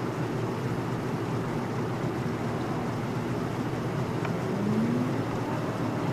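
Steady low rumble of distant engines, with a faint hum that rises in pitch about four and a half seconds in.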